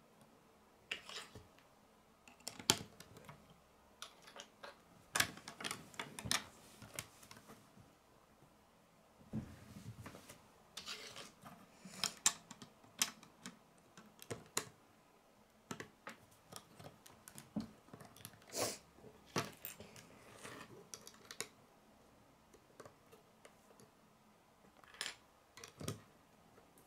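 Plastic Lego bricks being handled and pressed together, clicking as plates snap onto the chassis. The clicks come in irregular clusters with short quiet gaps.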